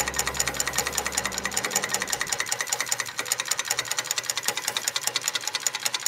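A running machine with a rapid, even mechanical clatter, roughly a dozen ticks a second, like a small engine. A low hum under it cuts off about a second and a half in.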